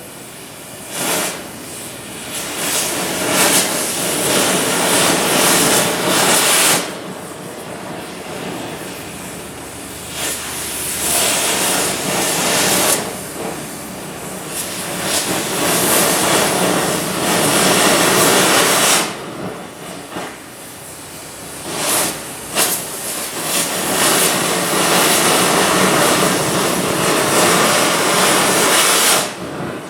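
Airco oxy-fuel cutting torch burning through rusted structural steel channel: a hiss that swells loud and drops back in spells several times.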